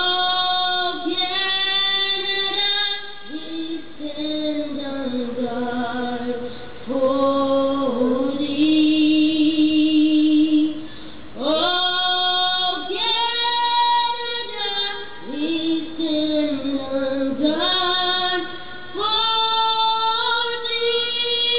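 A woman singing a slow solo vocal line, holding long notes and gliding between them, with short pauses between phrases.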